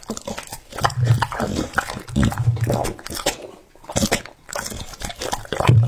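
A bully-breed dog chewing and biting hand-fed pieces of potato taco, with repeated crunchy chomps. A few low throaty rumbles come between the bites.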